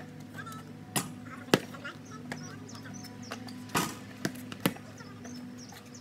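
A basketball bouncing on a concrete driveway and hitting the hoop in sharp knocks, about five of them, the loudest just after a second in. A steady low hum and faint bird chirps run underneath.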